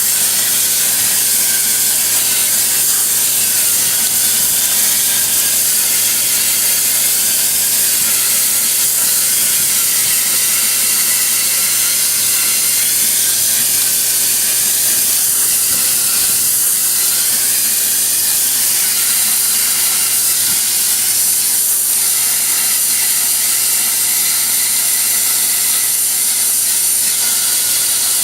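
Transformer-based plasma cutter at 50 amps cutting through quarter-inch wall steel tube: a steady, loud hiss from the torch over a low hum.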